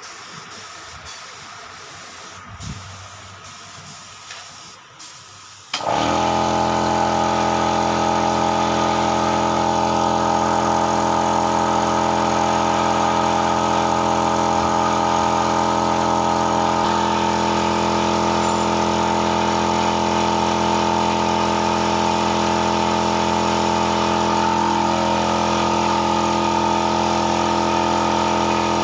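A motor-driven machine starts abruptly about six seconds in and then runs loud and steady at a constant speed, with an even, unchanging hum; before it there are only a few faint clicks.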